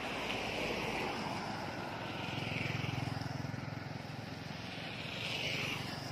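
Small motorbikes and a pickup truck passing close by on a dirt road, engines running, with a low engine hum that swells as each vehicle goes past.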